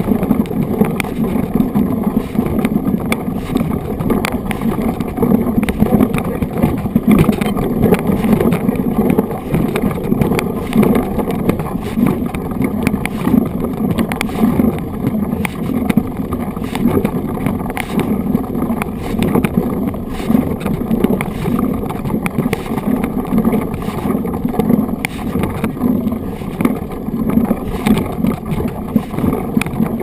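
Mountain bike's knobby tyres rolling over a gravel dirt road: a steady rumble with a constant patter of small rattles and knocks.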